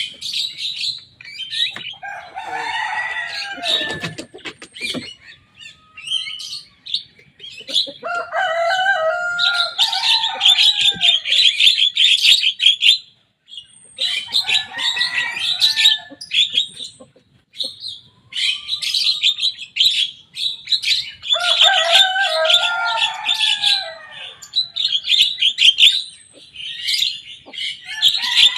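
Young Javan myna singing in repeated bouts of rapid, chattering high notes mixed with harsher, lower calls, each bout a few seconds long with short pauses between.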